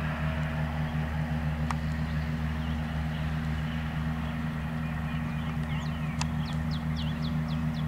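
A steady low mechanical hum, like an engine or generator running, with a single sharp click about two seconds in. Near the end a bird sings a quick series of high, downward-sliding chirps.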